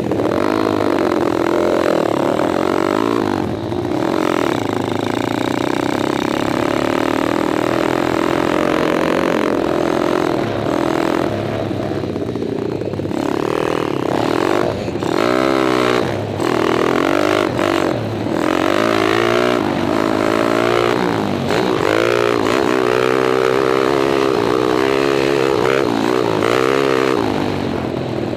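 Kawasaki KLX dirt bike with a 177 cc stroker kit, its single-cylinder four-stroke engine heard close up from on board, revving up and backing off over and over as it is ridden hard. The pitch keeps climbing and falling, with brief drops in level as the throttle is shut.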